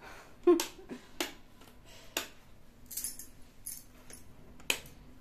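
A wall light switch clicking about half a second in, followed by a few scattered lighter clicks and knocks.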